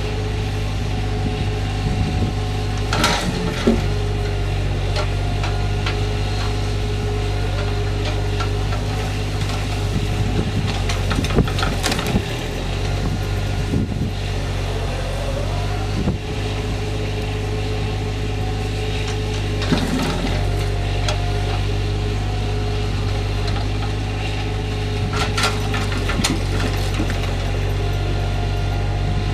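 Truck-mounted knuckleboom log loader unloading logs: its diesel engine runs steadily under hydraulic load, with a whine that shifts in pitch as the boom swings. Logs knock and clunk several times as the grapple sets them down and releases them.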